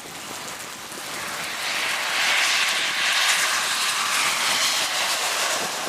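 A vehicle passing on a wet road: a rushing tyre hiss that swells over the first two seconds and then holds.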